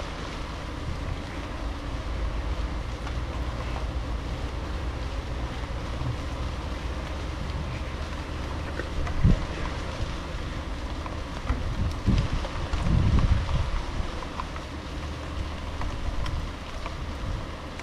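Thunderstorm wind and rain, a steady rushing noise with the wind buffeting the microphone in low gusts, loudest about nine seconds in and again around twelve to thirteen seconds in.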